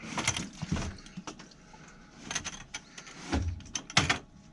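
A plastic 5-gallon water bucket being slid back into place under a sink cabinet and handled: a series of knocks, scrapes and clatters, with a couple of low thuds near the end.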